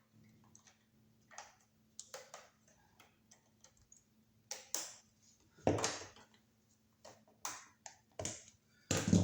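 Irregular light clicks and taps of hand tools and copper wire on a wall receptacle, as the black wire is bent into a hook and fitted under the receptacle's brass terminal screw. The loudest clicks come about halfway through and near the end, over a faint steady low hum.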